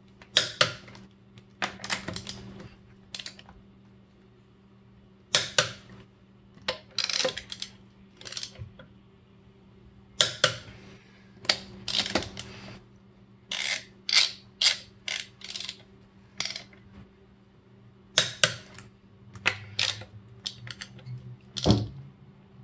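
Click-type torque wrench tightening a car wheel's lug nuts to 110 foot-pounds in a star pattern: a long series of sharp metallic clicks, some single and some in quick runs of several.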